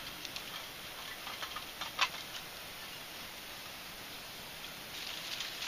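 Small twig fire crackling inside an Element wood-burning camp stove: scattered sharp pops and ticks, one louder pop about two seconds in.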